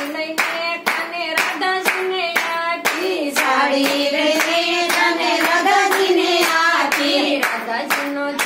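Group of women singing a Gujarati devotional bhajan, their hand claps keeping a steady beat about twice a second.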